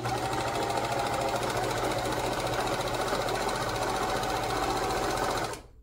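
Electric sewing machine running steadily at speed, stitching a seam, then stopping about five and a half seconds in.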